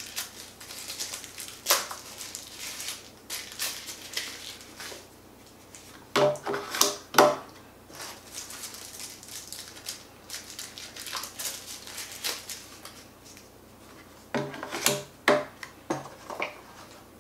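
Hands handling small plastic drone parts and packaging in a carrying case: scattered clicks and light rustling, with two clusters of louder plastic clacks and knocks, about six seconds in and again near the end.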